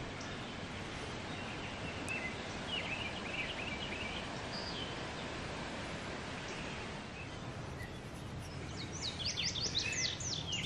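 Small birds chirping over a steady background hiss: a short twittering about two seconds in, then a quick run of chirps near the end.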